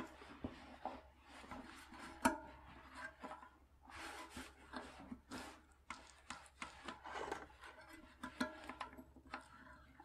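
Freshly reassembled KT Histop coaster brake hub being turned back and forth by its sprocket to test it: faint rubbing with irregular small clicks and ticks from the hub, sprocket and axle parts.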